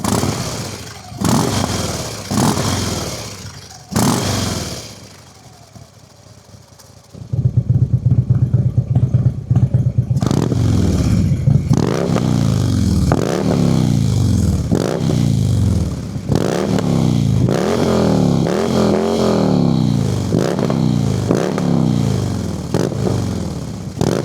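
Air-cooled Twin Cam 110 V-twin of a 2014 Harley-Davidson CVO Road King revved while standing. Three throttle blips each rise and fall back. About seven seconds in the engine gets suddenly louder and settles at idle, then it is blipped again and again, about once every second and a half.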